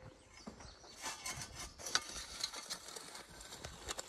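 Duc Plow, a small hand-pushed turning plow, with its steel point scraping and cutting through dry, clumpy garden soil: a run of irregular crunches and scrapes.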